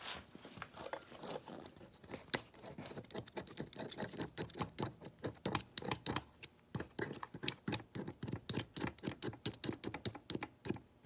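Quick, irregular scraping and clicking strokes of a blade scraping a warped old gasket off a small two-stroke engine's mating surface.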